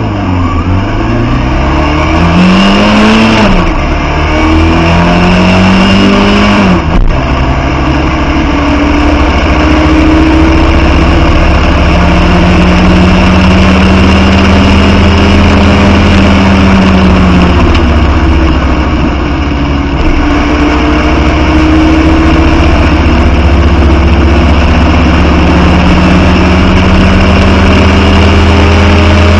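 Original Austin 7 four-cylinder side-valve engine under racing load, heard from inside the car. In the first few seconds the revs climb and fall back twice, about three and a half and seven seconds in, as it shifts up. It then runs at high, steady revs, rising and falling gently.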